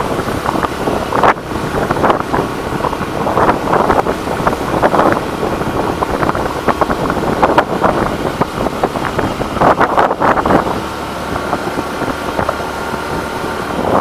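Wind buffeting the microphone of a moving motorcycle in uneven gusts, over the steady running of its engine.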